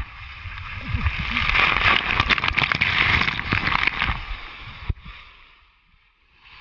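Rushing water and spray as a rider goes down a steep water slide, heard close up, with water splashing onto the camera. It builds over the first second, stays loud for about three seconds, then drops away suddenly about five seconds in.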